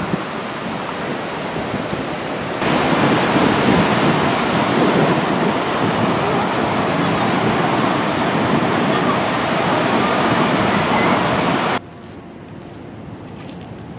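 Ocean surf breaking and washing up a sandy beach: a steady, loud rushing that starts suddenly a few seconds in and cuts off abruptly near the end. Before it there is a lighter rush of wind, and after it a quiet breeze.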